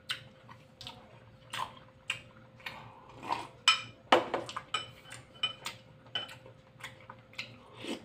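A white ceramic spoon clinking and scraping against a glass bowl of broth: a string of irregular light taps, some ringing briefly.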